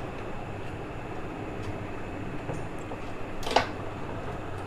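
Steady low background hum with a single sharp click about three and a half seconds in, as a wire connector is pushed onto a CRT TV's main circuit board.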